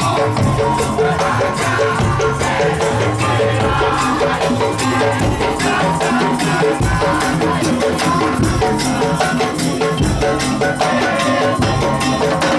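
Madurese daul (tong-tong) music played live: a percussion band of drums, bamboo slit-drums and rattles keeping a fast, steady beat under a repeating melody.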